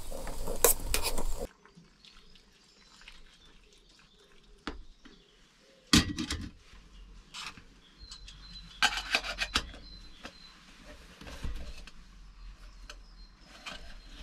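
Spoon scraping and clinking in an aluminium camping cook pot while porridge is made: a loud scrape at the start, then scattered small clicks, a sharp knock about six seconds in and a quick run of clinks around nine seconds.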